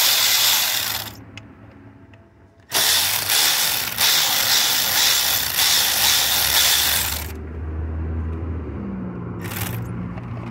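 Milwaukee cordless electric ratchet with a Torx bit, spinning out a steering column bolt. It runs in a short burst, pauses, runs again for about four and a half seconds, then gives one brief burst near the end, with a low steady hum underneath in the later part.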